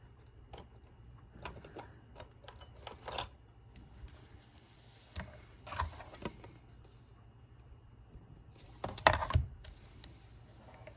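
Paper and card being handled and folded in half: scattered light taps and short rustles, with a louder crinkling rustle and knock about nine seconds in.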